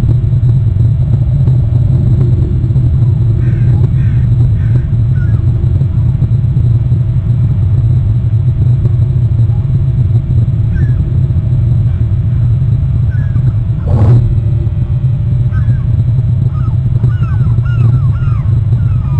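Steady, loud low rumble of wind buffeting an outdoor webcam microphone. Small birds chirp faintly now and then, in a short run about four seconds in and more often near the end. A single sharp click comes about fourteen seconds in.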